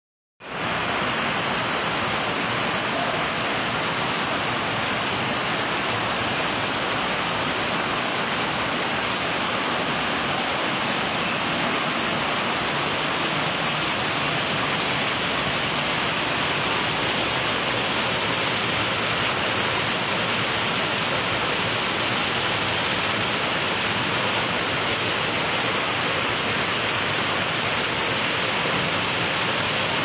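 Heavy rainstorm: a steady, unbroken rush of rain on the roof mixed with rainwater pouring down through openings in the ceiling.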